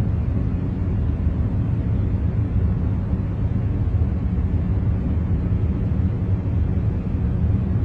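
Steady noise track of the kind played for concentration, deep and rumbling, with most of its weight in the low range and only a faint hiss above. It runs unchanged, with no events.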